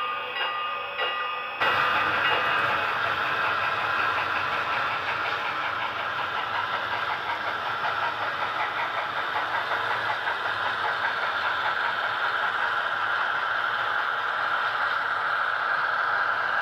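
HO scale model train running on layout track. For the first second and a half there are regular wheel clicks over rail joints. After a sudden change, a steady rolling rumble with a fine, rapid clatter follows as the cars cross a steel truss bridge.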